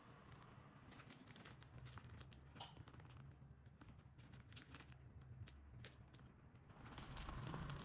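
Near silence with faint crinkling and light ticks from a plastic piping bag being squeezed to pipe batter into a parchment-lined pan, over a low steady hum. The crinkling grows a little louder near the end.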